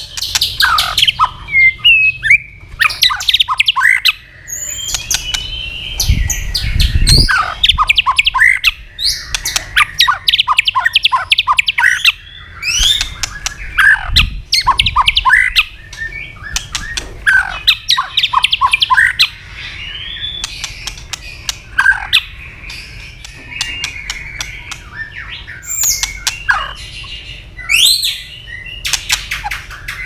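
White-rumped shama singing a fast, varied song: whistled phrases, sweeping notes, rapid trills and sharp clicking calls.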